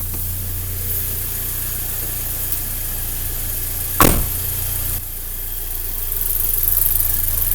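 Audi A3 petrol engine idling on its first start after a torn timing chain was replaced, the idle not yet settled while it warms up. A single sharp knock about four seconds in.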